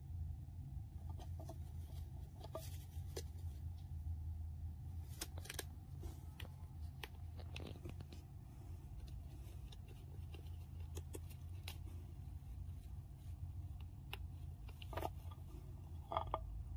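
Hamster gnawing at a seed stick, cracking the seeds in small, irregular crunching clicks, over a low steady hum.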